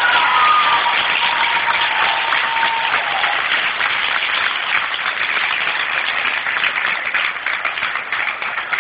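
Audience applauding loudly, with a drawn-out cheer over the first three seconds.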